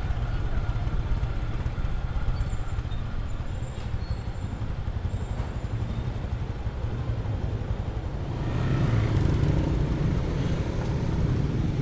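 Motorcycle running while being ridden along a town street, with a steady low rumble of engine and wind noise. It gets louder about eight and a half seconds in.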